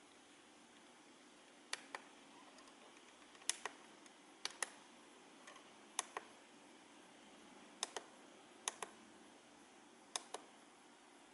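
Small plastic buttons on an RC radio transmitter clicking as they are pressed and released while its menu is stepped through: seven pairs of sharp clicks, the two in each pair about a fifth of a second apart, over a faint hiss.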